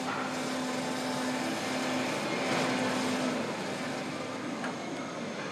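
Steady machinery hum with a low steady tone that breaks off a few times and fades out about halfway through.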